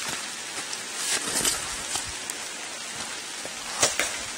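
Steady patter of rain on leaves and branches, with two sharper ticks a little before the end.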